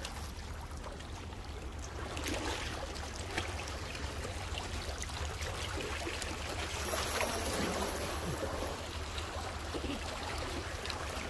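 Sea water washing and lapping against shore rocks, with a steady low wind rumble on the microphone.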